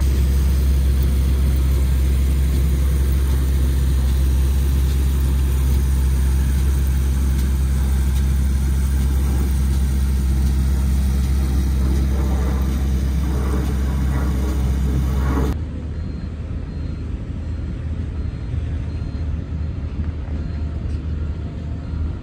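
A large farm tractor's diesel engine running steadily as it tows a hopper spreader across loose earth, a loud, even low drone. It cuts off abruptly about two-thirds of the way through, giving way to a quieter, steady rumble of excavators digging at a distance.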